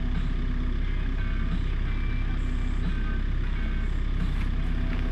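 Volvo ECR58D compact excavator's diesel engine idling steadily, a constant low rumble while the machine stands still.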